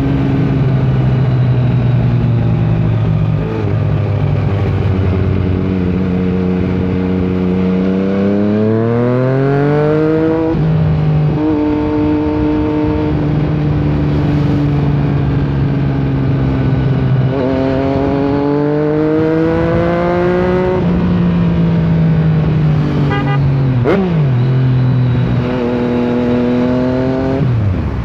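Yamaha MT-09's three-cylinder engine under way. Its pitch climbs under throttle and drops sharply at gear changes or when the throttle closes, several times, with stretches of steady running between.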